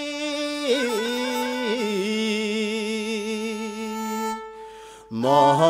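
Nepali sarangi, a bowed folk fiddle, playing long held notes with vibrato in the song's accompaniment; they fade out about four and a half seconds in, and the music comes back in more loudly just before the end.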